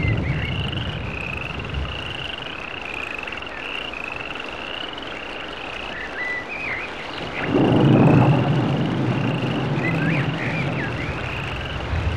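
Frogs calling: a short high call repeated steadily, a little more often than once a second, with a few brief higher chirps. A low rumble underneath swells to its loudest about eight seconds in.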